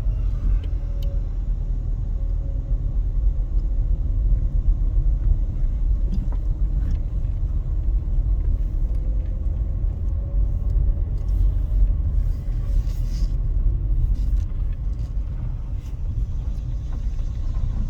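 Steady low rumble of a car driving, its road and tyre noise heard from inside the cabin.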